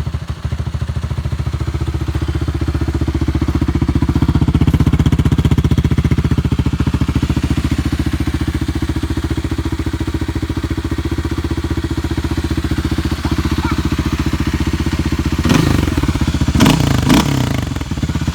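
Kawasaki KLX300R's single-cylinder four-stroke engine running steadily with an even, fast exhaust pulse. About sixteen seconds in there is a brief burst of louder, uneven noise over the engine.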